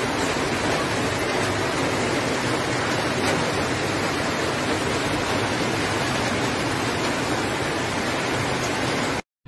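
Muddy floodwater rushing down a street as a fast torrent: a loud, steady rushing of water that cuts off suddenly near the end.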